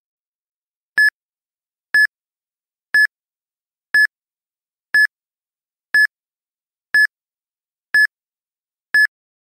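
Countdown timer sound effect: nine short, identical electronic beeps, one each second, marking the seconds ticking away.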